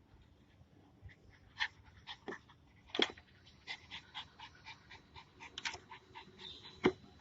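A dog panting quickly, with a few sharper clicks among the breaths.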